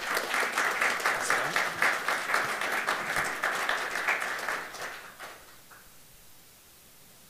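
Audience applauding, a short round of clapping that fades out about five seconds in.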